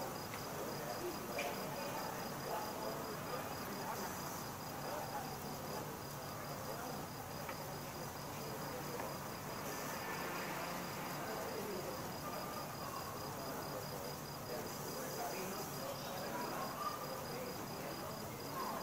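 Night ambience of crickets chirping in a fast, even pulse that never stops, over a soft, steady background murmur.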